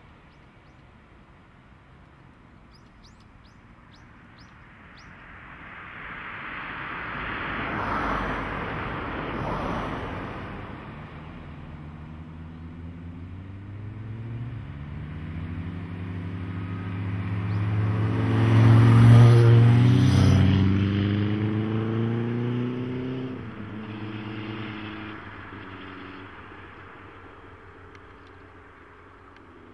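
Two road vehicles passing close by one after the other. The first is a rush of tyre and engine noise that swells and fades about a quarter of the way in. The second is louder, with an engine hum that drops in pitch as it goes by just past the middle.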